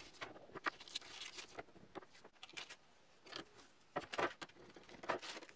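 Protective paper backing being picked loose and peeled off an acrylic template holder: faint scratching and crackling in short, irregular bursts.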